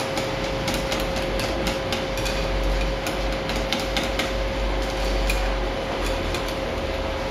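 Hand whisk scraping and clicking irregularly against a glass bowl while folding whipped cream into melted chocolate, over a steady background hum.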